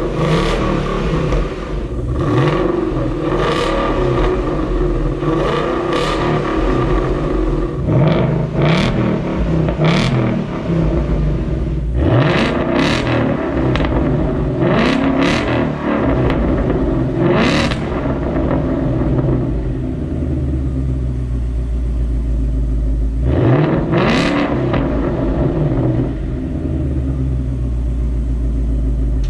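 2019 Ford Mustang GT's 5.0 Coyote V8 through its active exhaust, revved in several quick blips that rise and fall back, then settling to a steady idle for the last few seconds.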